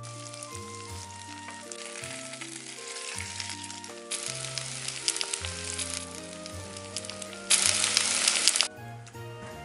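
Salmon fillets and maitake mushrooms sizzling and crackling as they sear in oil in a frying pan, the crackle growing louder about two seconds in. Near the end a louder steady hiss lasts about a second and cuts off suddenly. Light background music plays throughout.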